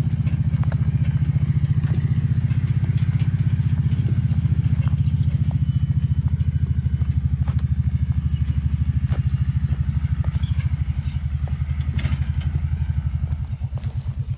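Quad (ATV) engine running steadily with a rapid even pulse, under scattered light knocks and rattles; about a second before the end it drops to a quieter, slower idle.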